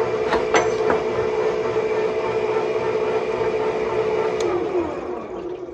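Electric angle grinder running at full speed with a steady whine and a few short sharp sounds in the first second, then switched off about four and a half seconds in, its pitch falling and fading as the disc spins down.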